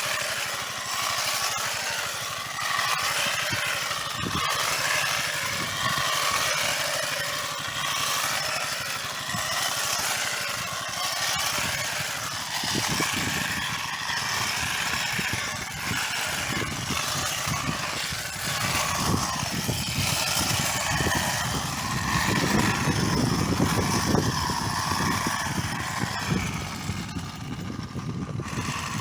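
Battery-powered shoot cutter with a brushless motor and toothed blade running steadily. From about midway, and strongest near the end, there is dense crackling as it cuts through plant shoots.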